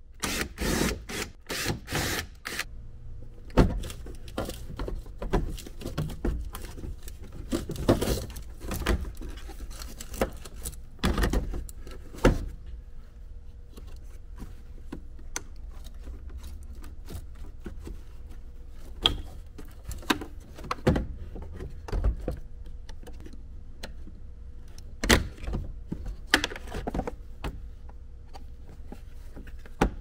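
Hand tools and loose dashboard parts clinking, rattling and knocking during dash teardown work, starting with a couple of seconds of rapid clicking and then scattered separate knocks. A faint steady hum runs underneath.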